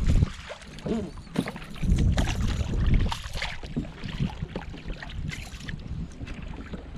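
Wind buffeting the microphone in gusts, with water splashing as a small hooked fish flaps at the surface beside a kayak.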